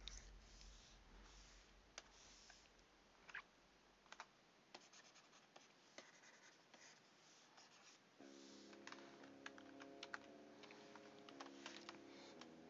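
Faint scattered clicks and scratchy taps of a stylus on a graphics tablet and a computer keyboard during digital painting. Faint background music comes in about eight seconds in.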